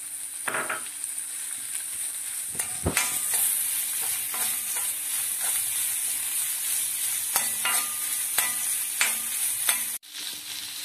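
Diced sausage sizzling in hot coconut oil with onion, green chillies and curry leaves in a kadai, stirred with a metal spatula that scrapes and knocks against the pan. The sizzle grows louder about three seconds in.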